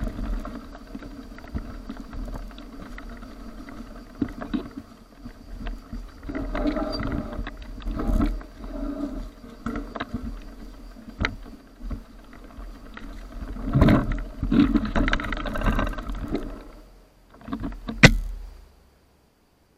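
Mountain bike riding a dirt and gravel forest trail: tyres crunching and the bike and camera mount rattling, with irregular sharp knocks over bumps. The loudest knock comes near the end, and then the sound cuts out.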